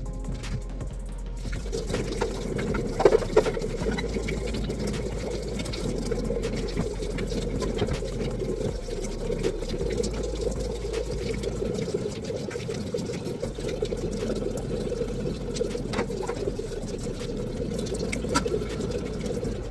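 Tap water running steadily, with a few sharp clinks.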